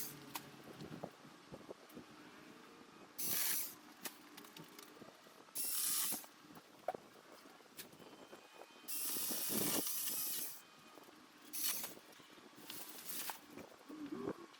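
Five short bursts of hissing noise, each lasting under about a second and a half, with faint ticks between them.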